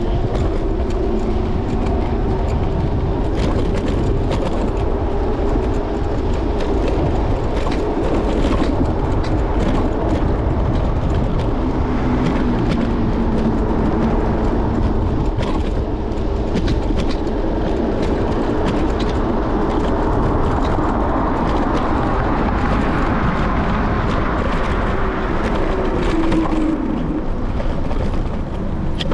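Steady rumble of riding an electric scooter along city streets, heard from its handlebars, with a faint whine that drifts and falls in pitch near the end.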